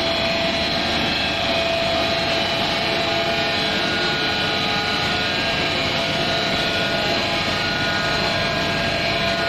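Steady engine noise of road construction machinery running, a dense even rumble with a few faint steady tones and no breaks.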